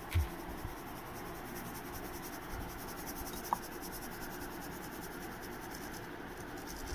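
A sieve being shaken over a bowl, sifting flour and semolina: a quiet, fast, even scratchy rustle of several strokes a second. There is a low thump just after it starts.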